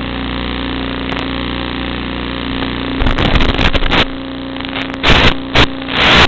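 Small FPV quadcopter's electric motors and propellers humming steadily, heard through the onboard recording. Loud rough bursts of noise cut in about three seconds in and again near the end.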